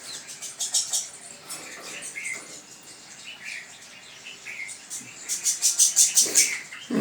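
Small birds chirping and chattering rapidly while they squabble over scattered feed. The chatter comes in quick runs, loudest a little over five seconds in, with single call notes in between.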